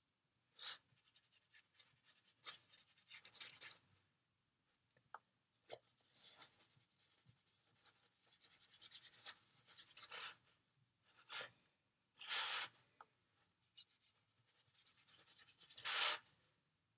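Faint strokes of a paintbrush brushing watercolour across paper, a short brushing sound every second or two.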